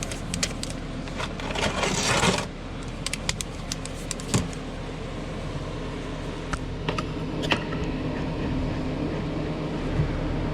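Scattered light metallic clicks, clinks and scrapes from someone shifting and handling tools under a raised car, with a rustling scrape about two seconds in, over a steady low hum.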